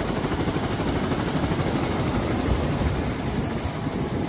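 Helicopter running on the ground close by, a loud, steady engine and rotor noise.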